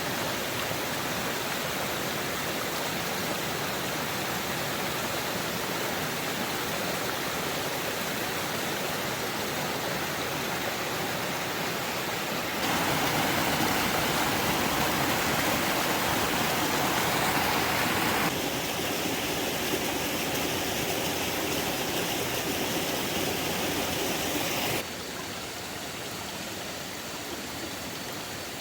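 Steady rush of running water. It jumps suddenly louder about halfway through, drops back about six seconds later, and steps quieter again near the end.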